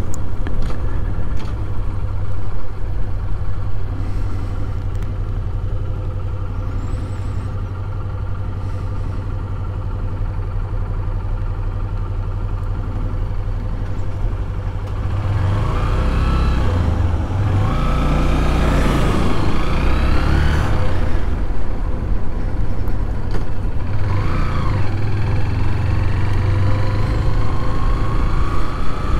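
Honda motorcycle engine running under way, heard from a chin-mounted helmet camera. Past the middle the revs rise and fall several times, and near the end the pitch climbs steadily as the bike accelerates.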